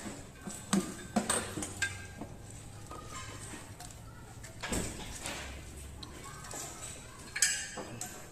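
Metal parts and tools clinking and knocking together as they are handled, in irregular single strikes, the loudest near the end.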